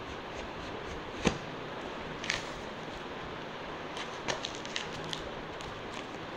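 Cardboard shipping box being torn open by hand: a sharp crack about a second in, then scattered ticks and crinkles of card and packing, over a steady hiss.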